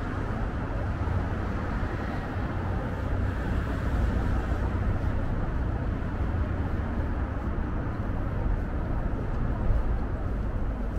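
Steady city street ambience: the even hum of road traffic, with no single vehicle or event standing out.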